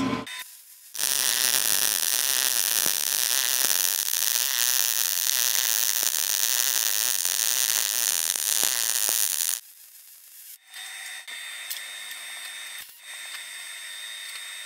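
MIG welding arc from a Lincoln Electric Power MIG 210 MP running .030" wire at 280 in/min and 19 volts with C25 shielding gas: a steady, dense crackling hiss for about eight and a half seconds that stops abruptly. After it stops, a fainter hiss with a few clicks.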